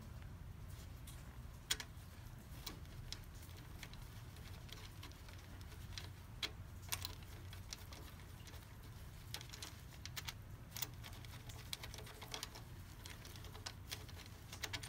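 Scattered light metallic clicks and taps as bolts and parts are handled among the camshaft bearing caps on a cylinder head, over a faint steady low hum.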